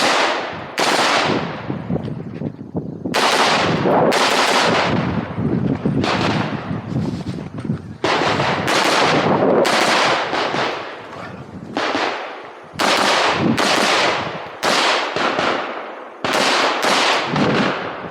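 A string of about twenty semi-automatic rifle shots from a rifle fitted with a muzzle brake, fired as the shooter runs a stage: single shots about a second apart, with some quicker pairs and a few longer pauses. Each shot is loud and leaves an echoing tail.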